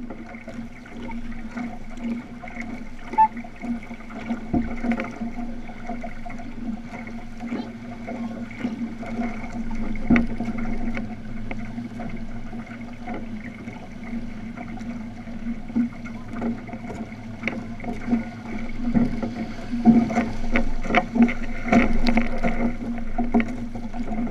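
Outrigger canoe moving through choppy water under paddle, with paddles splashing and water washing along the hull, and irregular sharp splashes and knocks throughout.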